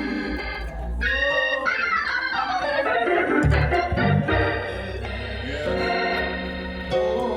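Church organ playing the B-flat accompaniment to a gospel hymn between sung lines: held chords over bass notes, with a few sweeping runs up and down in the middle.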